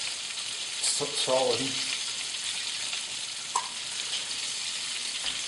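Breaded chicken pieces deep-frying in hot oil in a pan, a steady sizzle, the chicken freshly turned over partway through cooking.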